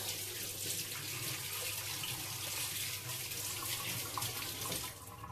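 Kitchen tap running, water splashing as the immersion blender is rinsed under it; the water stops near the end.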